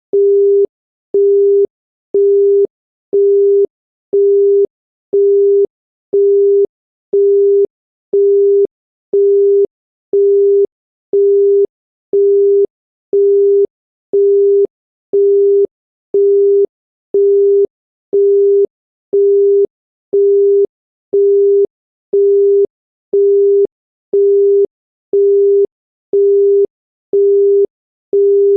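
Japanese telephone busy tone: a single steady 400 Hz beep, half a second on and half a second off, repeating evenly. It tells the caller that the line is engaged.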